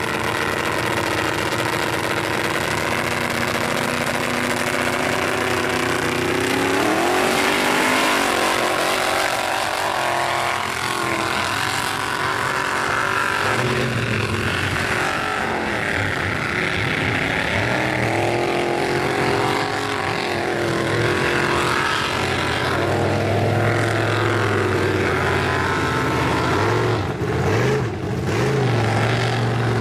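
Lifted mud-bogging truck's engine idling, then revving up about six seconds in and running hard, its pitch rising and falling as the tires spin through the mud pit.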